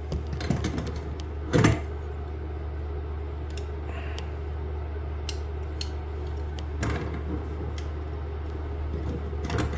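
Small metal clicks and clinks of hand tools working on a toilet supply hose fitting, with one louder clank about one and a half seconds in, over a steady low hum.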